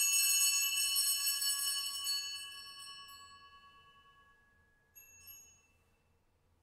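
Altar bells rung at the elevation of the host during the consecration: a bright, many-toned ring that dies away over about three seconds, then two short, softer rings about five seconds in.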